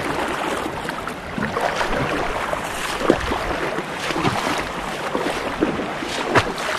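Swift creek water rushing and splashing around a kayak, with many small splashes and a few sharper ones, the loudest about three seconds in and again near the end.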